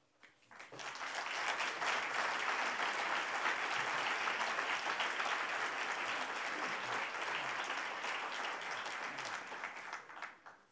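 Audience applauding. It builds within the first second, holds steady, and dies away near the end.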